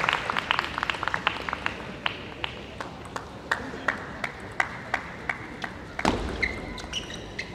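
Arena applause thinning to scattered claps between table tennis points. About six seconds in, a rally starts: a dull thud followed by short high-pitched pings and squeaks from the ball and the players' shoes on the court.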